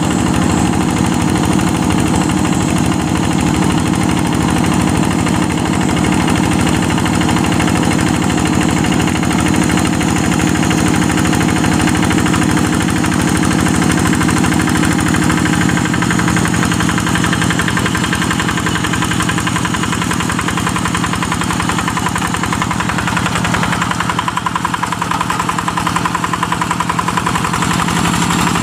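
Single-cylinder Yanmar diesel engine of a two-wheel hand tractor running steadily with a fast even knock while pulling a moldboard plough through soft wet paddy mud. Its note drops slightly about halfway through.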